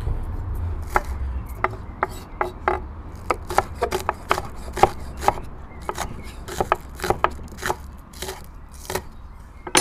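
Knife chopping on a cutting board in irregular, uneven strokes, over a low rumble that is strongest in the first second or so.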